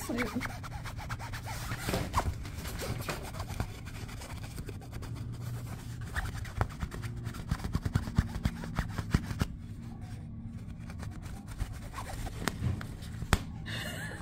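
Scratching and rubbing on the taut fabric wall of a cat cube, with scattered short scratches and taps over a steady low hum.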